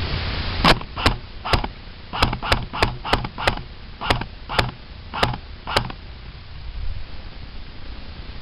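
CYMA MP5K PDW airsoft electric gun firing single shots, about twelve sharp cracks at an uneven pace over some five seconds. Steady rustling noise runs underneath.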